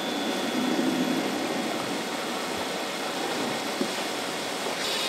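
Steady rushing noise of a burning boat being fought with fire hoses, with a low engine-like drone under it.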